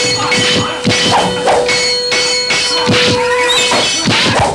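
Fight-scene sound effects: a quick series of sword clashes and blows, with metallic ringing between the strikes, over background music.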